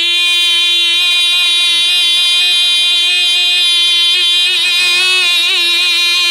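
A voice holding the drawn-out "yeah" of a "yeah boy" shout on one long, high, steady note. The note begins to waver near the end.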